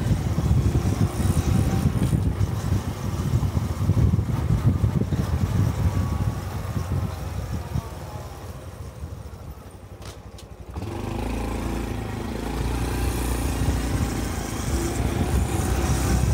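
Honda Cub 125's single-cylinder engine running while riding, heard from on the rider. The sound eases off about eight seconds in, then comes back abruptly about eleven seconds in.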